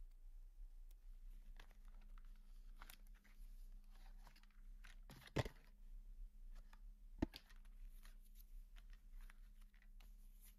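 Faint rustling and tearing of a cardboard box being opened by hand and its inner box slid out, with two sharper clicks a little after five and seven seconds in.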